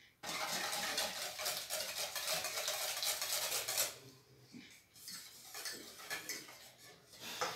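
Wire balloon whisk beating runny egg batter in a stainless steel bowl, fast clinking strokes against the metal as olive oil is mixed in. After about four seconds the whisking turns slower and softer.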